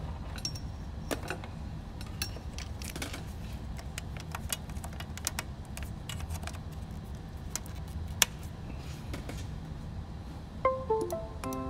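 Light clicks and small rattles of handling over a steady low hum. Near the end comes a short falling run of computer chime notes, then a second chime just after, like the sounds a Windows PC makes when a USB device is unplugged and plugged in.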